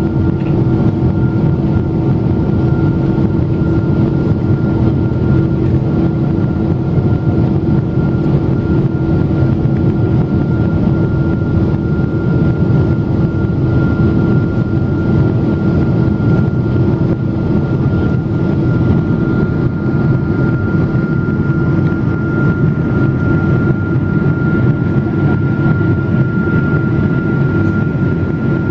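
Boeing 777-200 airliner in flight, heard from inside the cabin: the steady roar of the jet engines and rushing air, with a low hum and a higher whine held throughout.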